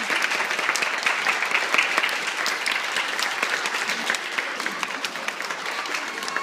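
An audience of seated schoolchildren and teachers clapping, dense and steady, starting to die down near the end.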